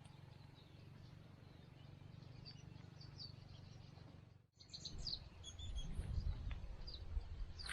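Birds chirping in short, high calls over a low rumbling background. The sound cuts out briefly about halfway through; after that the chirps come more often and the low rumble grows louder and more uneven.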